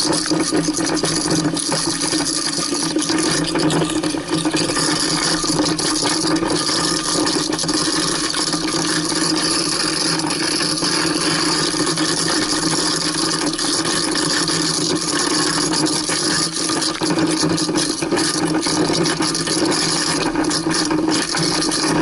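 Waste King garbage disposal motor running steadily under water, grinding lamb shank bones, with frequent rattling and clicking as the bone pieces are thrown around the grinding chamber.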